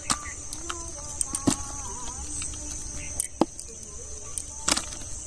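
Steady high insect chirring, with a handful of sharp clicks and knocks scattered through it as the trapped catch of apple snails and prawns is sorted by hand on the ground.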